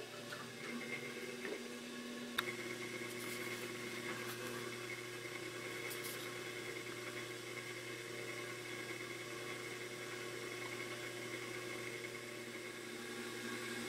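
Electric potter's wheel motor running with a steady hum; about two and a half seconds in, a sharp click, after which the hum settles at a new steady pitch.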